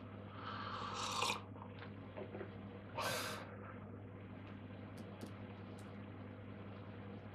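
Cigarette being stubbed out and scraped against a ceramic ashtray: two short scraping rushes, about a second in and about three seconds in, then a few faint clicks. A steady low hum runs underneath.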